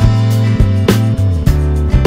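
Background music: guitar over bass notes and a drum beat.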